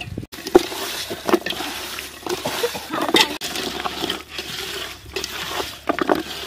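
Cauliflower florets being stirred into thick, wet masala batter in a metal pot with a spoon: wet squelching and sloshing, with scattered sharp knocks of the spoon against the pot.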